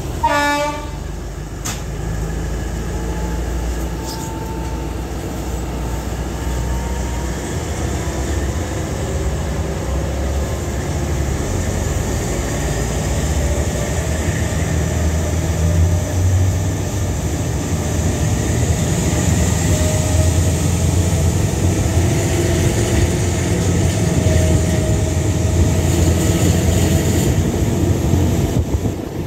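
A brief train horn blast right at the start, then the steady running rumble of a passenger train pulling away from the station, growing louder as it gathers speed. Heard from the open doorway of a carriage.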